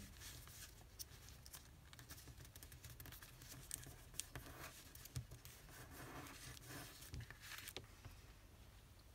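Faint rustling, crinkling and small clicks of a sheet of origami paper being creased by hand and then opened out again.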